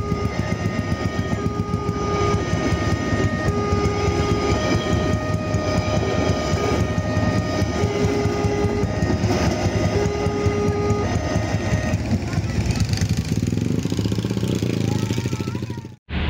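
Railway level-crossing warning alarm sounding a repeating pattern of steady tones, each about a second long and alternating in pitch, over the rumble of a passing passenger train. The alarm stops about twelve seconds in while the train keeps running past, and the sound cuts off abruptly near the end.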